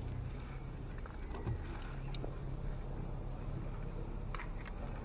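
A steady low motor hum, with a few faint clicks.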